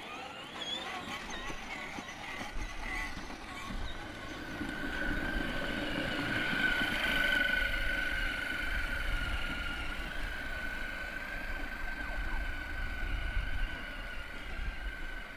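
12-volt electric ride-on toys, a kids' ATV and a toy car, driving along a concrete sidewalk. A steady high whine from their electric drive motors and gearboxes comes in about four seconds in, over a low rumble.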